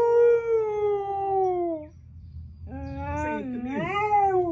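Siberian husky howling: one long howl that slides slowly down in pitch and stops about two seconds in, then, after a short pause, more wavering howls with two voices overlapping.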